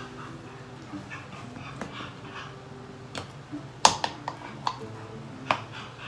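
A dog whining softly in drawn-out, steady-pitched whimpers. A few sharp clicks and taps come through as makeup items are handled; the loudest is about four seconds in.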